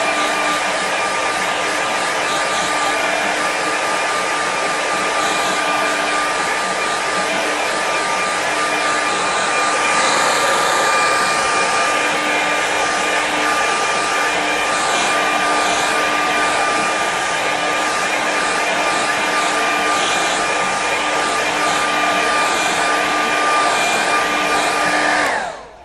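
Handheld hair dryer running, a steady rush of air with a constant motor whine, switched off near the end.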